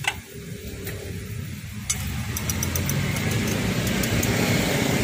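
A passing motor vehicle on the road, its engine noise growing steadily louder through the second half. A few light clicks of a metal spatula against the pan come about two seconds in.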